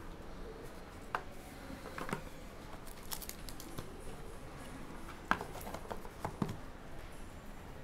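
Cardboard trading-card hobby box being opened and handled: about five sharp clicks and knocks of cardboard as the lid and inner tray are worked, with light scraping around three seconds in.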